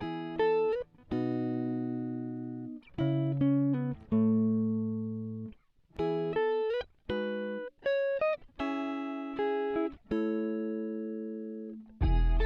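Background music: a plucked-string melody of separate ringing notes, a few of them bending slightly in pitch, with fuller music and a strong bass coming in near the end.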